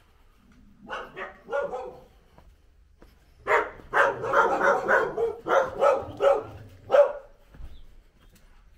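Dog barking: a few barks about a second in, then a longer quick run of barks.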